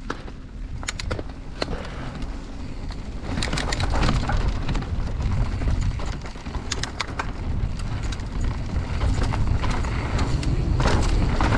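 Mountain bike riding a rough downhill trail: wind buffeting the camera microphone as a heavy low rumble, with the noise of tyres on dirt and sharp clicks and rattles from the bike over bumps. It gets louder about three seconds in and again near the end as the speed picks up.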